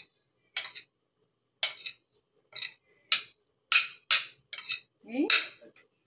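About eight short, sharp taps or clicks of kitchen utensils and dishes, spaced unevenly from half a second to a second apart. The last one, near the end, is longer, with a rising tone under it.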